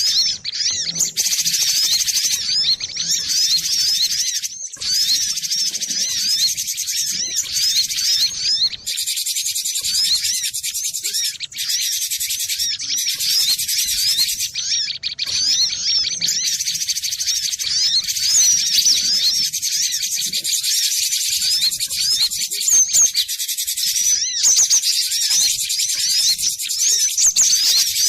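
Cinereous tit (glatik batu) calling: a dense, continuous run of rapid high chirps and twitters, with short breaks every few seconds.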